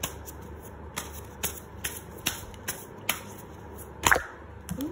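A deck of oracle cards being shuffled by hand: sharp card clicks about two or three times a second. About four seconds in there is a louder snap as a card flies out of the deck.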